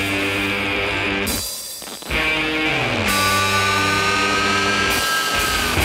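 Rock music with guitar: downward-sliding chords, a short drop in level about one and a half seconds in, then a held high note from about three seconds on.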